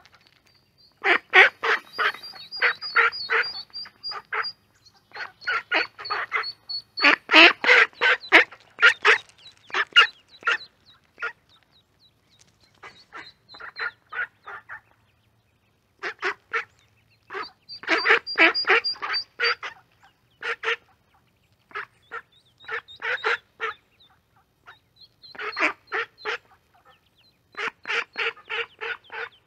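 Female mallards quacking close to the microphone in runs of short, rapid quacks with pauses between runs, while mallard ducklings peep high and thin alongside.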